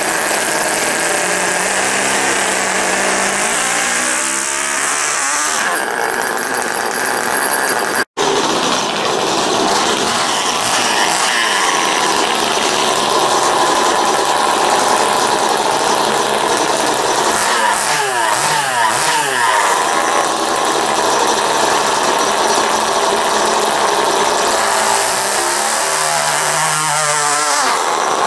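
Small, high-revving model glow engines of RC micro pulling tractors running loudly, the revs rising and falling several times as they are warmed up and run. The sound drops out completely for a split second about eight seconds in.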